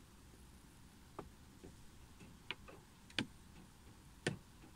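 Single raindrops tapping on a car windscreen, heard from inside the car: about six irregular ticks, the loudest a little after three and four seconds in, over a faint steady background.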